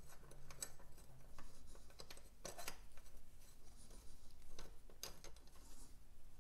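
Faint metal-on-metal handling of a 1951 Vincent Rapide prop stand being refitted by hand to its bracket: a few sharp clicks scattered through, among quieter scraping and rubbing as the leg and a spanner are worked into place.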